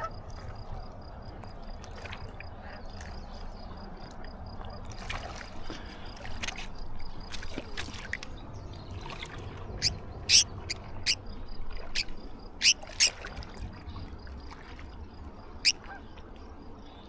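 Riverside ambience with water trickling, a faint, evenly pulsing high tone, and a quick run of sharp clicks and taps about ten to thirteen seconds in, with one more near the end.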